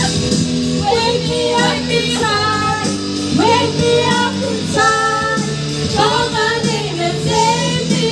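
A voice singing a melody over backing music with held chords.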